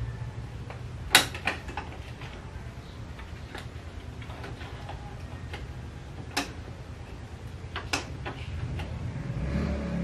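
Epson L1800 inkjet printer running a test page: a low mechanical hum with scattered sharp clicks and knocks from its paper feed and print-head mechanism, the loudest about a second in.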